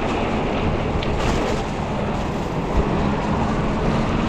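Riding noise from a 20-inch folding fat-tire e-bike under way: a steady rushing rumble of air and tyres on pavement, with a faint steady hum running through it.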